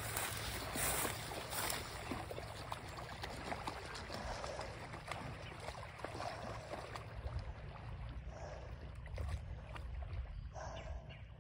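Footsteps crunching and rustling through dry field grass and brush, with many small irregular crackles, over a low rumble of wind on the microphone.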